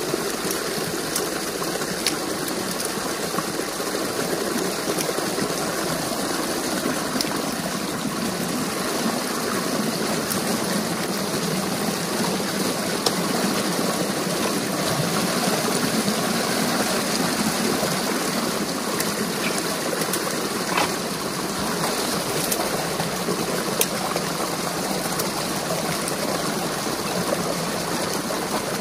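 Water rushing and splashing steadily through a breach in a beaver dam, pouring into a muddy channel, with a few light clicks.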